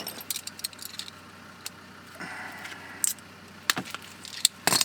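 Hands working on the heater fitting: a scatter of small sharp clicks and light metallic rattles, with a short rustle about two seconds in and a few louder clicks near the end.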